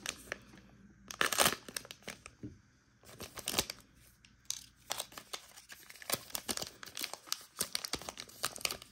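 Plastic-foil wrapper of a basketball trading-card pack crinkling and being torn open by hand. There is a sharp crackle about a second and a half in, then dense crinkling from about halfway on.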